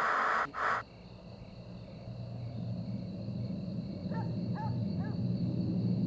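Loud TV static hiss that cuts off abruptly under a second in, leaving a low steady rumble. About four seconds in, a bird gives three short calls, half a second apart.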